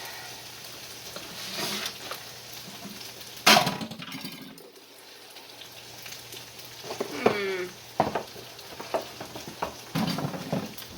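Browned fatty meat sizzling in a frying pan, with a utensil scraping and knocking against the pan as it is worked. There is a sharp, loud clank about three and a half seconds in, a short squeak near seven seconds, and more knocks after that.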